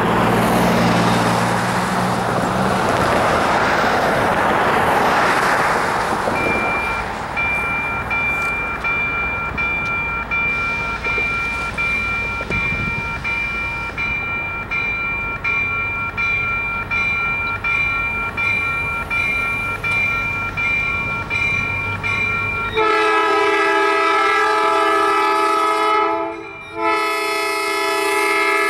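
A Western-Cullen-Hayes electronic crossing bell starting up after a few seconds of road noise and ringing in steady repeated strokes, with a sick-sounding tone. Near the end a Norfolk Southern MP15DC switcher locomotive's horn sounds two long blasts over the bell, with a short break between them.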